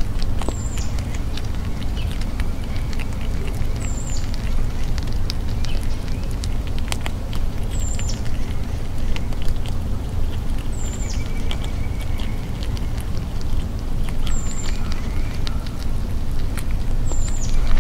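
Grey squirrel gnawing peanuts, with scattered small cracks and clicks, over a steady low rumble. A short high chirp with a falling tail repeats about every three and a half seconds.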